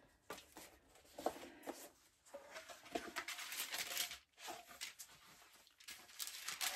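Tissue paper rustling and crinkling in short, irregular bursts, with light handling of a cardboard gift box as its lid comes off and the wrapping is folded back.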